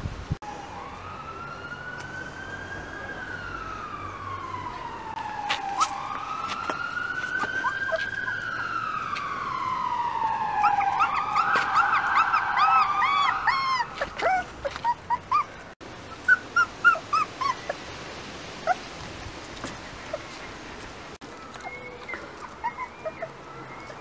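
An emergency-vehicle siren wailing, its pitch rising and falling slowly twice before fading about halfway through. Rough collie puppies whimper and yip in short high cries, a quick flurry while the siren fades, then scattered cries.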